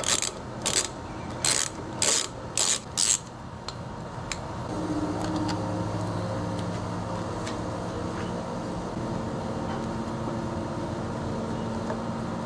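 T15 torx screwdriver working a screw out of a plastic air cleaner cover: six short, sharp strokes in the first three seconds. About five seconds in, a steady low hum sets in and keeps going.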